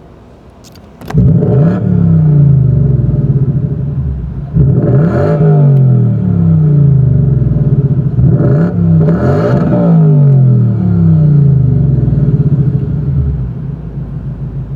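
A Ford Mustang V8 starts about a second in, flaring loudly and then settling. It is then revved up and let fall three times before easing back toward idle.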